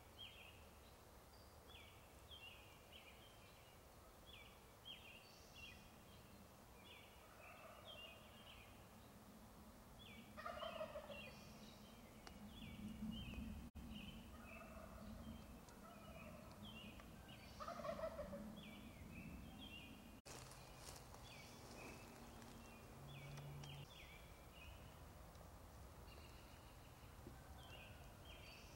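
Wild turkey gobbling: two loud gobbles, each a quick falling rattle, about ten seconds in and again about seven seconds later, with fainter gobbles a few seconds before each. A songbird's short high notes repeat in the background.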